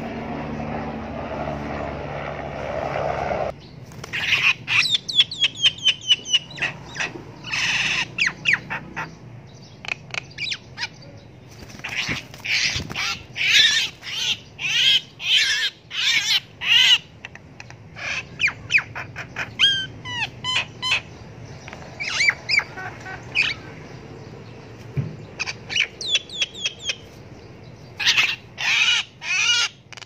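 A hand-held myna giving harsh, rapid calls in repeated bursts from about four seconds in, the distress calls of a trapped bird. Before that, a steady hum stops suddenly.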